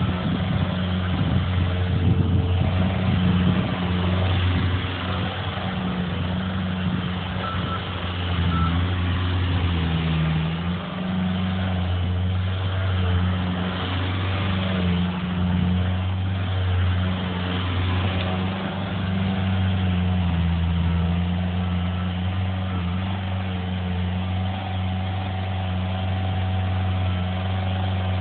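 Diesel engine of a heavy work machine running continuously, its pitch dipping and rising as the load changes.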